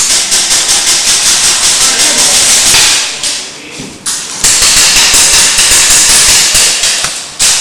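Airsoft electric gun firing on full auto in two long bursts, a fast even rattle of shots. The first burst runs about three seconds and the second starts about a second and a half later and stops just before the end.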